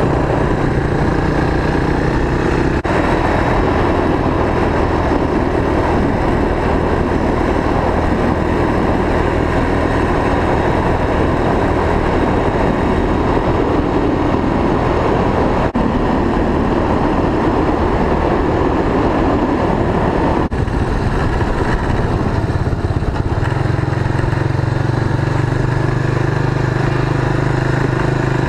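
Trike engine running as it is ridden along. About three-quarters of the way through, the engine note changes and settles into a steadier low hum.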